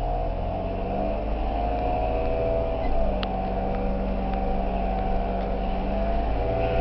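Supercharged Chevrolet Cavalier Z24 engine running under way, with a whine that rises and falls with engine speed. The owner takes this for a strange noise of unknown cause. There is a brief click about three seconds in.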